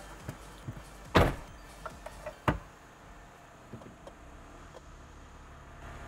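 A Toyota Land Cruiser HDJ100's 1HD-FTE straight-six turbo-diesel idles low, heard from inside the cab. Over it come two loud thumps about a second and a half apart, with lighter clicks and knocks around them, as the driver settles into his seat.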